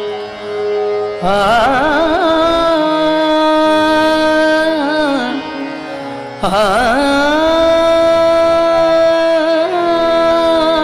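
Indian devotional song: two long, ornamented melody phrases with vibrato, the first entering about a second in and the second about six seconds in, over sustained accompaniment chords.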